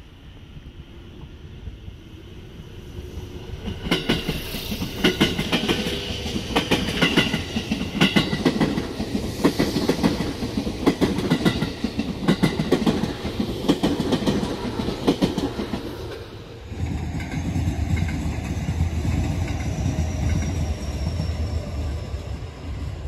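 JR Central 211 series electric train passing close by, its wheels clattering over the rail joints in a steady clickety-clack that builds up as it arrives. After about 16 seconds the sound changes abruptly to a more distant electric train's low rumble with a faint high whine falling slowly in pitch.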